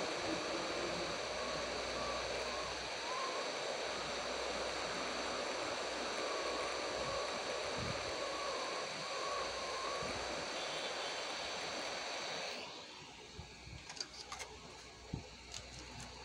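A steady hiss with a faint high whine that cuts off about thirteen seconds in, followed by a few light clicks and knocks of metal tweezers and a circuit board being handled.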